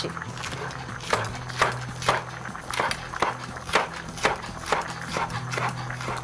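Chef's knife slicing a green capsicum (bell pepper) into julienne strips on a wooden cutting board: the blade knocks on the board in a steady rhythm, about two chops a second, over a low steady hum.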